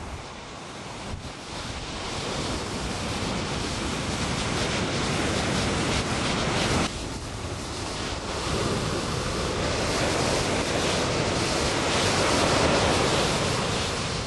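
Ocean surf breaking and washing up a beach, with wind buffeting the microphone. The rush of water builds louder toward the end.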